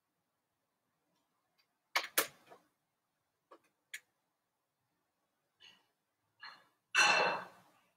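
Scattered clicks and knocks with silence between: a sharp double knock about two seconds in, a few faint clicks after it, and a louder, longer noisy knock near the end.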